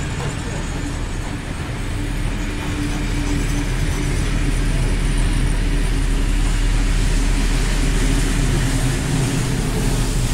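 A train running by: a steady low rumble with a droning tone that grows louder over the first few seconds and then holds.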